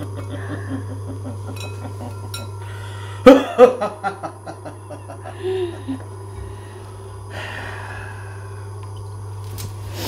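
A loud burst of laughter about three seconds in, breaking into a quick run of fading "ha" pulses, over a steady low hum.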